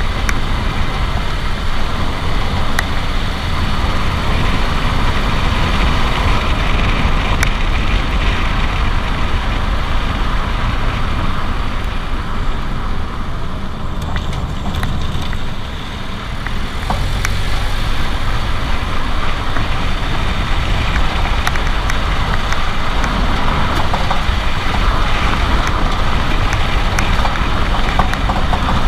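2017 Renault Duster 4x4 running with steady vehicle and road rumble, and scattered short clicks or knocks every few seconds. These are taken to be the front-suspension noise on the passenger side, which persists after new strut mount kits (bump stops, boots, top mounts), a stabilizer end link and anti-roll bar bushings.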